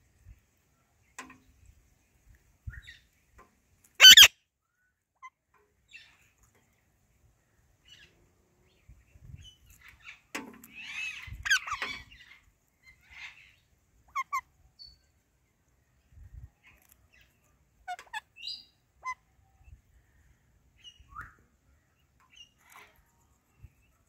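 Parakeets feeding on guava: scattered soft clicks and short chirps, with one loud, sharp call about four seconds in and a busier bout of chattering calls around eleven seconds in.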